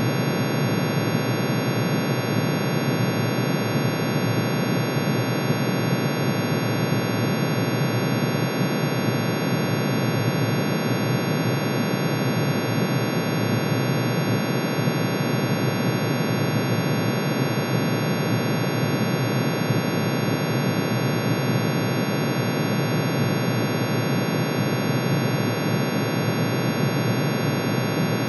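Synthesized drone made by adding sine waves, one for each line in iron's atomic emission spectrum pitch-shifted into the audible range. It gives a steady, unchanging dissonant hum: a dense rough cluster low down under many fixed high tones.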